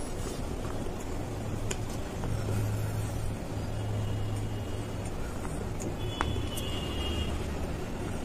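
Close-miked chewing of dry baked clay from a tiny clay pot: a steady low crunching rumble broken by a few sharp clicks.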